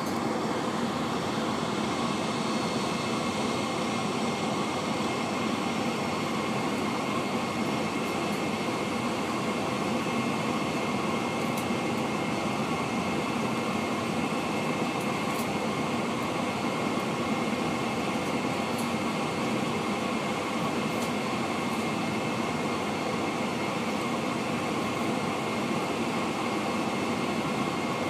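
Steady cabin noise of a Boeing 747-436 taxiing. Its Rolls-Royce RB211-524H turbofans are at low, unchanging thrust, heard from a window seat over the wing, with a faint steady whine above the hum.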